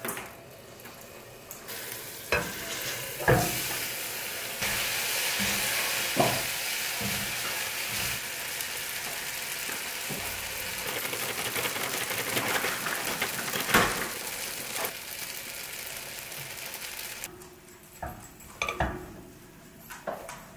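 Food sizzling in a hot pot as sriracha and seasonings go in, with a few sharp knocks of a utensil against the pot. The sizzle starts a couple of seconds in and cuts off abruptly a few seconds before the end.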